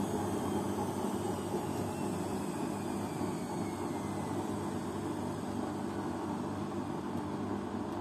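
Beko front-loading washing machine running with water in its drum: a steady mechanical hum and rushing noise, with a faint whine that falls in pitch over the first few seconds.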